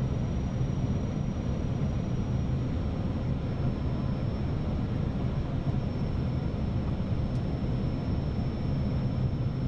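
Steady flight-deck noise of an Airbus A319 on final approach: a low, even rumble of airflow and engines, with a thin high steady tone running over it.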